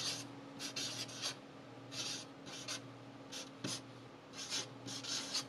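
The broad chisel tip of a dual-tip alcohol-based sketching marker drawn across paper while writing letters, in about a dozen short hissing strokes. A faint steady hum lies underneath.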